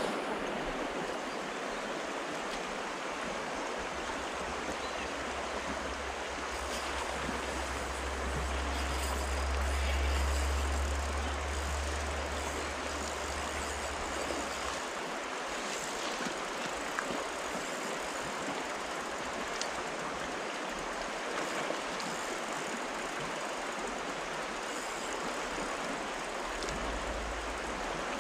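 River water rushing steadily over shallows close by. A low rumble runs through about the first half and stops.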